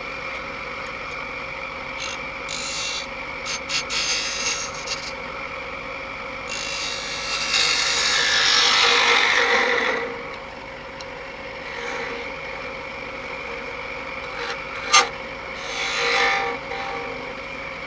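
Oak blank spinning on a One Way 2436 wood lathe while a 16 mm gouge takes light shaping cuts. The lathe's steady hum runs under rasping cuts that come and go, the longest from about six to ten seconds in, with a sharp click near fifteen seconds.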